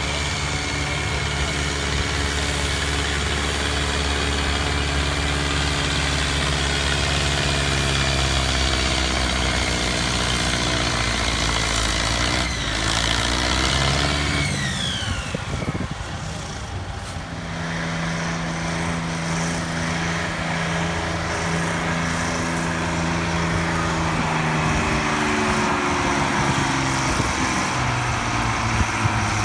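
Farm tractor's diesel engine running hard at a steady pitch, as in a pull. About halfway in it throttles back with a falling whine, then runs on steadily again, its pitch shifting near the end.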